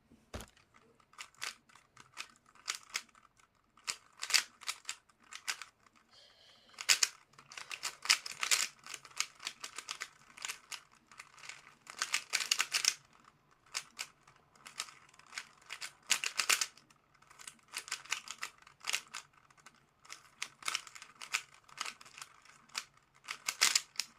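A lubricated Rubik's cube being turned fast during a speedsolve: its plastic layers clicking and rattling in quick, uneven bursts.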